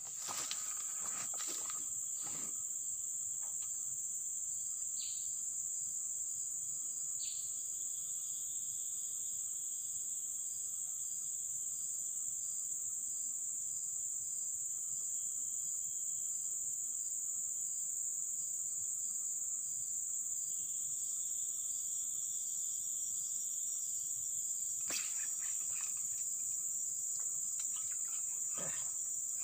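Steady, high-pitched drone of insects, with a fainter pulsing call repeating at an even pace. Two short falling whistles come a few seconds in, and a few faint clicks near the end.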